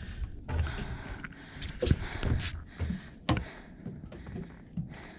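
Footsteps climbing wooden deck stairs, a series of irregular hollow knocks, with the rustle of a backpack and clothing.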